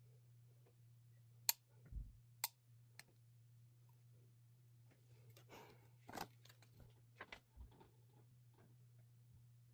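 Faint scattered clicks and taps of small objects being handled, with a brief rustle near the middle, over a steady low hum.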